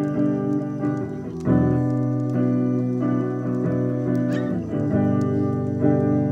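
Background music: sustained chords, held and changing every second or two.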